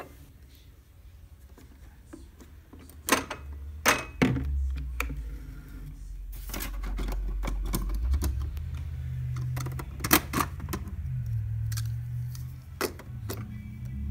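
Sharp clicks and knocks of a capsule coffee machine being handled, a handful of them spread irregularly, over a low hum that grows louder from about four seconds in.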